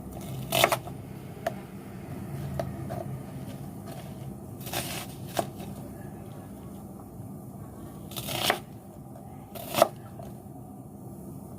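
Kitchen handling noises: a few scattered knocks and short rustling scrapes, spaced seconds apart, over a low steady hum. The sharpest knock comes near the end.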